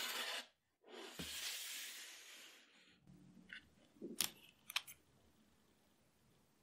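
A baking sheet lined with parchment paper sliding with a long, even scraping rustle, then two sharp, crisp crackles a little over half a second apart as a baked chocolate cookie is lifted off the parchment.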